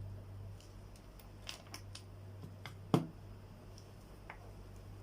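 Light clicks and taps from small parts and tools being handled on a workbench, with one sharper click about three seconds in, over a faint steady low hum.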